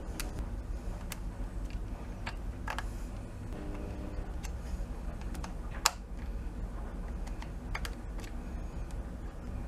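Irregular small metal clicks and ticks of a screwdriver tip nudging a nut round inside an air rifle's wooden stock, with one sharper click about six seconds in.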